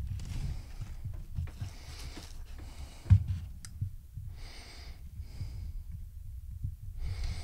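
Handling noise from hands working fishing line and a small metal crimp, a low rumble with one sharp knock about three seconds in as crimping pliers come into play. A few short breaths are heard later.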